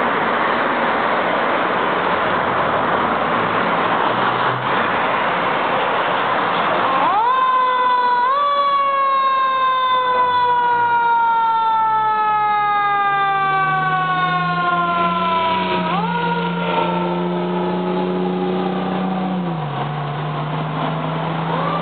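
Fire engine siren that starts about a third of the way in: it winds up quickly twice, then falls slowly in pitch for several seconds, winds up again and falls, and starts to rise once more at the end. Before the siren there is a steady loud rushing noise, and a low drone runs under its later part, stepping down in pitch near the end.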